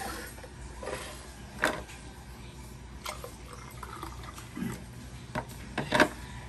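Water poured from a white electric kettle into a glass tumbler. Brief knocks come from the kettle being handled, and the loudest is a clunk about six seconds in as it is set back down on the tiled counter.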